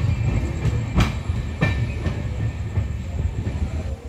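LHB passenger coaches of a departing express rolling past close by: a steady low rumble of wheels on rail, with two sharp clacks about a second and a second and a half in. The rumble fades near the end as the last coach moves off.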